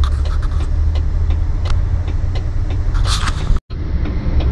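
Diesel truck engine idling, heard from inside the cab: a steady low rumble with light, irregular ticks. There is a short hiss about three seconds in, and the sound drops out for an instant just after it.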